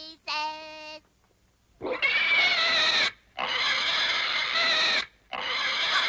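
Cartoon piglet crying: three long, loud wailing cries with short breaks between them, after a sung note ends about a second in.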